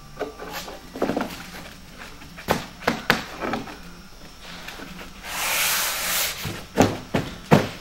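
Knocks and clatter of plastic form rails and foam panels of an insulated concrete form corner being handled on a worktable, with a scraping rush about five seconds in as the assembly is tipped up on its edge.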